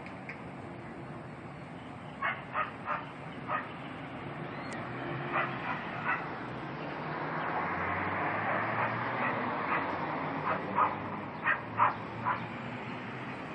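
A dog barking, about a dozen short barks in small groups of two or three. Under the barks a low, steady rumble swells in the middle and fades again.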